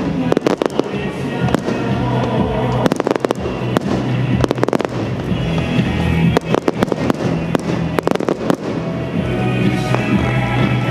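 Fireworks going off: many sharp bangs and crackles in clusters, over loud music.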